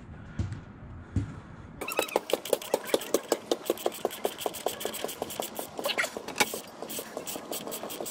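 Socket ratchet clicking in a fast, even run, about seven clicks a second, starting about two seconds in, as it loosens the valve body bolts of a TH400 automatic transmission.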